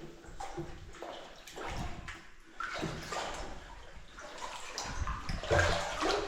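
Someone wading through water, a slosh and splash with each step in an uneven series of strides.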